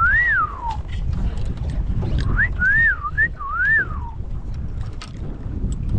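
A person whistling a short wavering tune: one rising-and-falling note at the start, then after a pause a quick run of three or four up-and-down notes. Low wind rumble on the microphone runs underneath.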